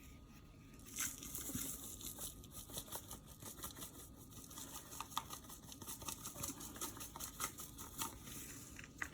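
Spice shaker being shaken over a bowl of flour: a long run of quick, soft rattling taps, starting about a second in.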